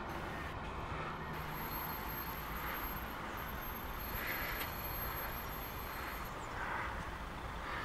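Mercedes-Benz coach pulling away and driving off, its diesel engine a low steady rumble mixed with street traffic noise.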